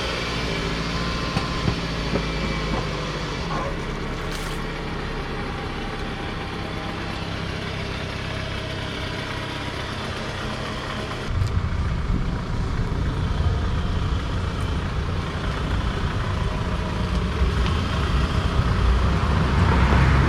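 2003 Toyota Camry's engine running as the car is moved to turn it around, a steady low hum that gets louder about eleven seconds in.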